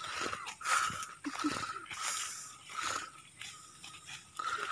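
Footsteps crunching and rustling through dry leaf litter and undergrowth, in irregular strokes about one every half second to second.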